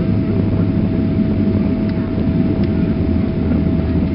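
Steady loud rumble of a Boeing 777-300ER's GE90 engines and landing roll, heard from inside the cabin over the wing as the jet decelerates down the runway, with a thin steady hum underneath.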